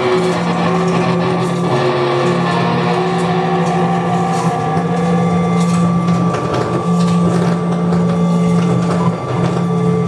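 Loud experimental electronic noise music played live on tabletop electronics: a heavy low drone that cuts out briefly a few times, with held higher tones over a dense layer of noise.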